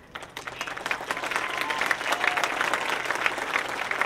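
Audience applauding: the clapping starts shortly after the beginning and swells within about a second, then holds steady.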